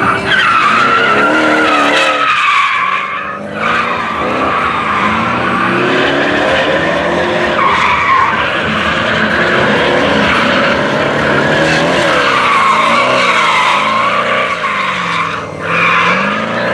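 BMW E36 drift car sliding sideways: the engine revs up and down while the tyres squeal, with brief drops in engine note twice.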